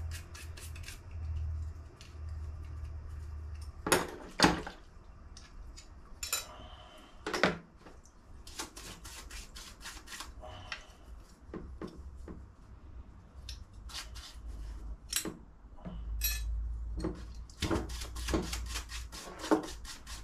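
Small metal motorcycle gearbox parts clinking against one another and being scrubbed by hand as they are washed in a plastic tub, with irregular clinks and knocks, a few sharper ones about four and seven seconds in.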